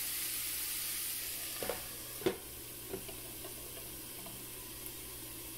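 Chopped banana flower and onion sizzling in a frying pan while being stirred with a wooden spatula. About two seconds in, a few sharp knocks and a clink come as a glass lid is set on the pan, and the sizzle goes a little quieter under it.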